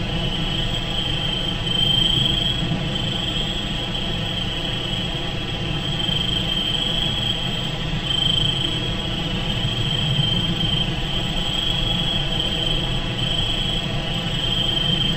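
Evening insect chorus, a steady high trill that slowly swells and fades, over a low steady rumble.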